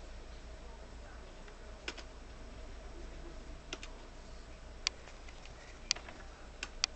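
Computer mouse button clicks, about six sharp clicks in all, several coming as quick double-clicks, over a faint steady hum.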